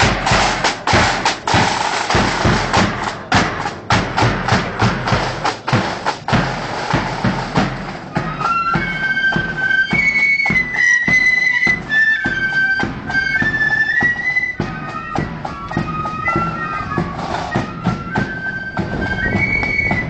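Marching flute band: snare drums beating a steady march rhythm, then about eight seconds in the flutes come in with a melody over the drums.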